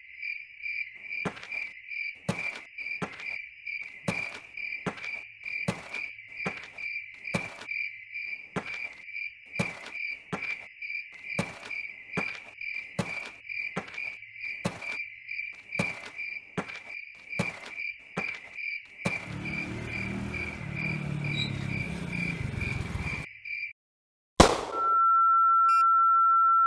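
Crickets chirping in a steady, fast pulse, with footsteps on pavement at about one and a half steps a second. A low rumble swells over the last few seconds of the chirping. Then everything cuts off, and there is one sudden loud hit followed by a steady high beep tone.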